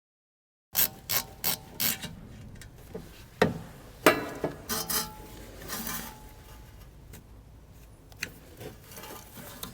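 Hand tools working on metal parts: a quick run of sharp clicks about a second in, then scattered metallic clicks and knocks with quieter rattling between them.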